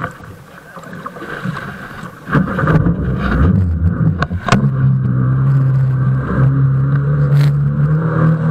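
A small boat's motor picks up about two seconds in, with a couple of sharp knocks, then runs at a steady pitch, the boat now under way at speed.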